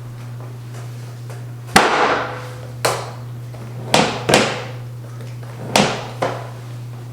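A series of six sharp knocks, several coming in quick pairs, each with a brief ringing tail, over a low steady hum.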